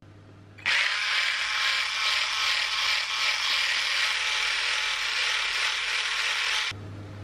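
Stick blender with a whisk attachment running steadily for about six seconds, whipping egg whites to a white foam in a glass bowl. It starts abruptly under a second in and cuts off suddenly shortly before the end.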